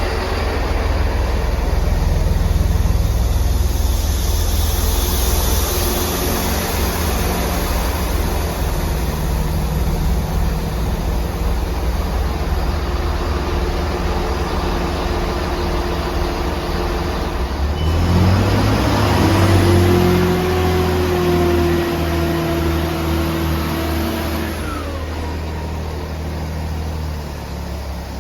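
Class 166 diesel multiple unit's engines running at the platform, then revving up about 18 seconds in with a rising whine as the train pulls away, the pitch holding for several seconds before falling off.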